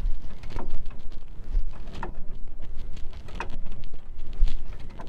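Socket wrench working on the rusted 19 mm nut of an MG TF rear track rod end ball joint: scattered clicks and knocks over a steady rushing noise. The nut is too stiff, so the ball joint has popped and spins instead of the nut unscrewing.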